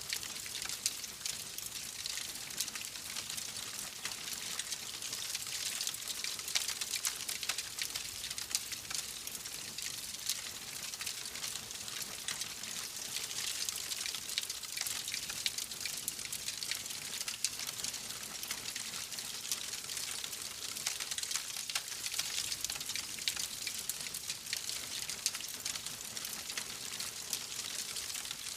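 Wood fire burning in a fireplace: a steady crackle of many small, fast pops over a soft hiss.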